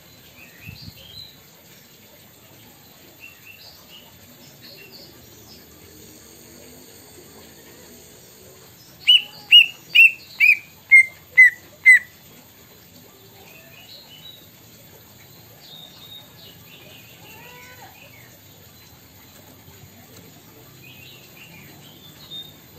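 Green leafbird (cucak ijo) giving scattered soft chirps and twitters. About nine seconds in it sings a loud run of eight evenly spaced whistled notes, each slurring downward, the run stepping down in pitch: its mimicry of the kedasih cuckoo's song.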